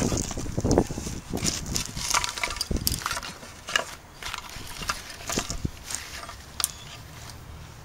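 Irregular small clicks, taps and rustling from hands working on small parts, denser in the first few seconds and sparser later.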